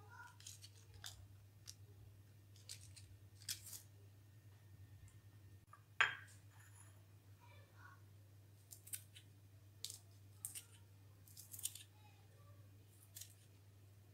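Scissors snipping curly red chillies into short pieces: a scattered run of sharp, crisp snips, with one louder knock about six seconds in, over a faint steady low hum.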